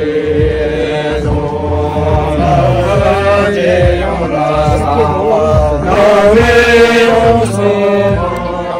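A group of men singing a slow traditional song together in unison, with long held notes that rise and fall in pitch. The singing grows loudest about six seconds in.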